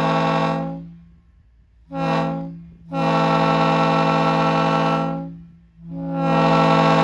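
Multi-chime locomotive air horn sounding a steady chord in separate blasts: one ending just under a second in, a short blast about two seconds in, a long one from about three to five seconds, and another starting about six seconds in.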